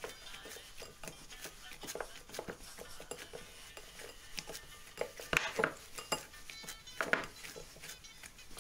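Dough kneaded by hand in a ceramic bowl: irregular soft knocks and taps of the hands and dough against the bowl, a few louder ones about five and seven seconds in.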